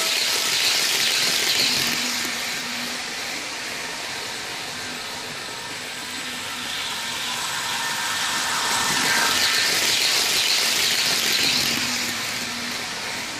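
Running sound of an H0 model Stadler KISS electric multiple unit fitted with an ESU sound decoder: a steady rushing noise of the decoder's electric-train running sound and the wheels rolling on the model track. It fades toward the middle and swells again from about eight seconds in.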